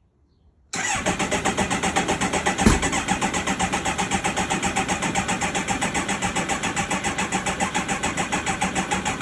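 Kawasaki ZX-9R inline-four being cranked on its electric starter after a year in storage, turning over slowly in an even chugging rhythm of about seven pulses a second without catching, then cutting off suddenly as the battery goes flat.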